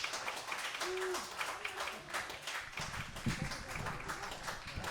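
Audience applauding, a dense patter of many hands clapping, with a brief voice call about a second in.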